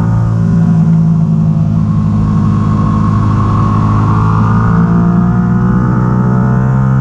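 Stock 2022 Yamaha R7's 689 cc parallel-twin engine running hard, heard from an onboard camera, its pitch climbing slowly and steadily as the bike accelerates in one gear.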